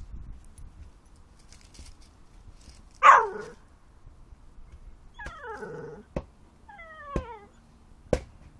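Whippet yelping while play-wrestling: one loud yelp about three seconds in, then two shorter whining yips that fall in pitch, with a few sharp clicks in between.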